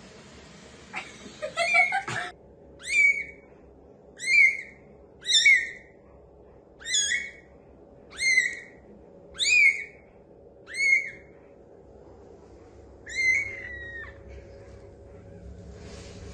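Newborn kitten mewing: about eight short, high-pitched cries, each rising quickly and then levelling off, spaced a second or so apart.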